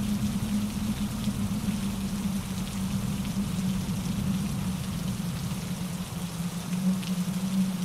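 Steady rain falling, mixed with a mountain stream rushing over rocks, with a constant low rumble of water and faint individual drop ticks above it.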